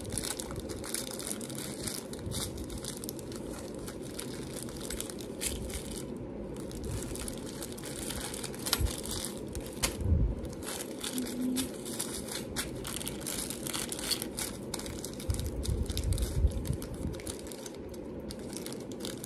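Crinkling and rustling of packaging as jewelry findings are handled and sorted, with a few soft bumps, over a steady low background hum.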